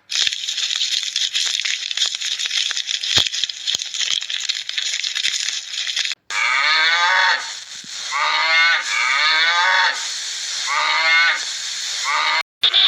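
A hissy, crackling noise for about half the time. Then, after a sudden cut, a large mammal gives a series of about five drawn-out calls, each bending in pitch.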